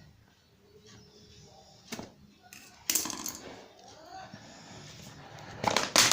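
Phone retail box being opened by hand: the seal broken and the cardboard and plastic packaging handled, with several sharp clicks and taps, the loudest cluster near the end.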